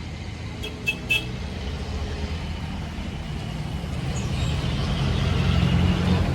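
Street traffic: motor vehicle engines running, a low rumble that grows louder toward the end as traffic comes closer. Three quick high clinks sound just before a second in.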